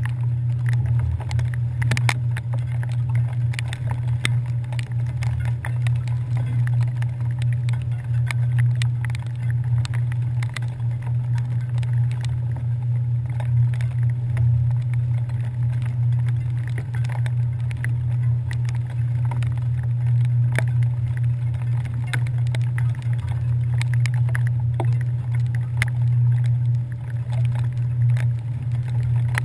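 Steady low drone of a passenger ferry's engines, carried through the deck, with irregular light ticks.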